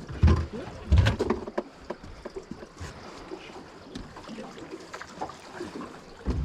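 Irregular knocks, clicks and thumps of people handling gear on a small fishing boat, with two louder thumps in the first second or so.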